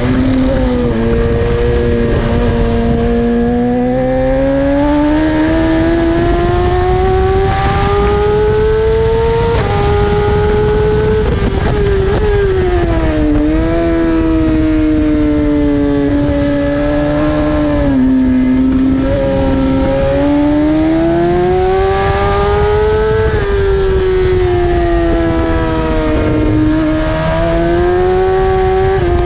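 BMW S1000RR's inline-four engine at racing speed, revs climbing and falling, with sudden pitch drops at each gear change.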